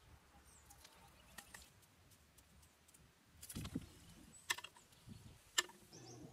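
A few short, sharp clicks and knocks, the loudest two about four and a half and five and a half seconds in, over a quiet background with faint bird chirps.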